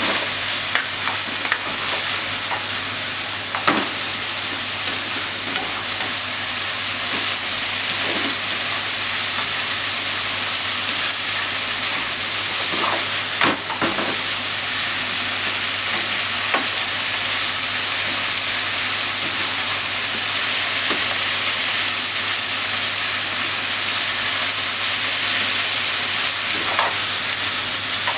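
Diced chicken, onion and corn sizzling steadily in a frying pan as they are stir-fried. A spatula scrapes and clicks against the pan now and then, most clearly about 4 seconds in and again around 13 seconds.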